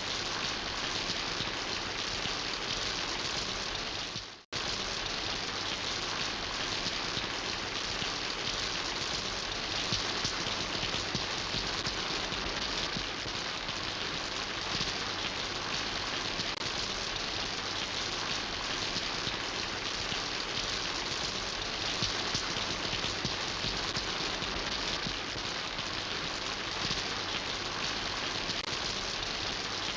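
Steady rain falling, an even rushing hiss of many drops. About four seconds in, the sound fades out for a moment and then cuts straight back in, like a recording splice.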